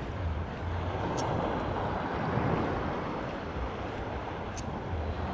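Wind rumbling on the microphone over the wash of shallow sea water, with two faint ticks, about a second in and near the end.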